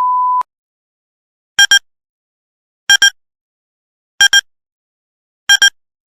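A steady electronic beep tone that cuts off about half a second in, followed by four short double beeps repeating evenly about every 1.3 seconds.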